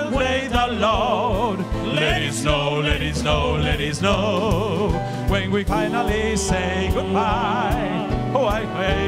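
Three male voices singing together with wide vibrato over a live pop band, with drums keeping a steady beat and a bass line underneath.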